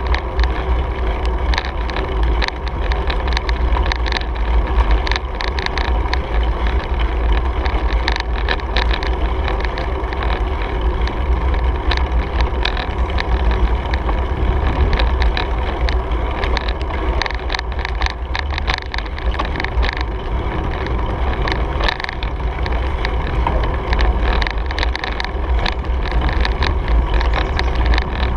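Riding a bicycle on a paved trail, with wind buffeting the mounted camera's microphone as a steady low rumble. Frequent small rattles and clicks from the bike and the mount come up as it rolls over the pavement.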